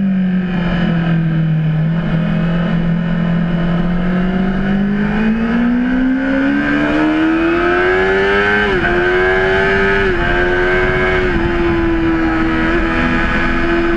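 Honda CBR600RR's inline-four engine pulling at low revs, then rising steadily in pitch under acceleration. Near the middle it dips sharply at a gear change, dips briefly twice more, then holds a steady high note. A steady rushing noise lies under it throughout.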